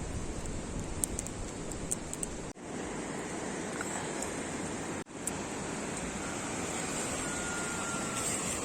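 A steady rushing noise, with a few faint ticks about one and two seconds in. It cuts out for an instant twice.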